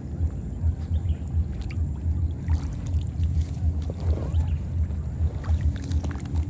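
Wind buffeting the microphone in uneven low gusts, with a faint steady high-pitched whine and a few faint clicks.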